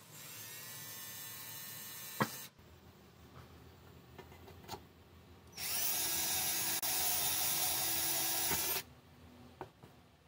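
Cordless drill with a step drill bit boring through a thin sheet-metal pizza pan, in two runs of a few seconds each, about five seconds apart. Each run starts with a rising motor whine, and there is a sharp knock near the end of the first.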